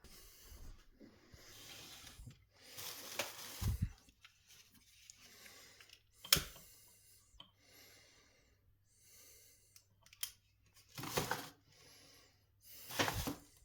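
Intermittent rustling and handling noises, with a sharp knock or click about six seconds in.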